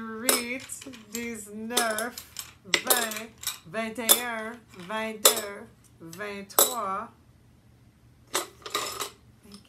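Buttons clinking as they are dropped one by one into a plastic estimation jar, about nine drops, each followed by a short wavering pitched sound; a softer rattle near the end.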